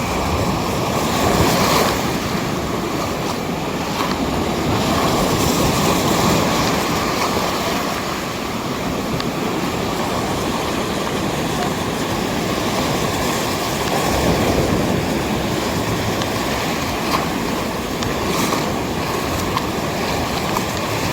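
Sea waves breaking and washing up a sandy beach: a steady rushing that swells and falls back every few seconds.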